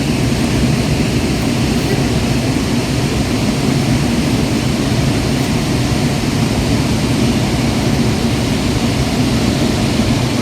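Chitrakote Falls on the Indravati River: a steady, loud rush of falling water with a deep low rumble.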